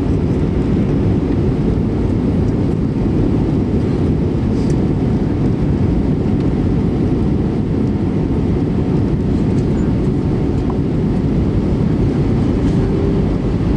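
Steady low roar of an airliner in flight, heard inside the passenger cabin: jet engine noise and airflow, holding level without change.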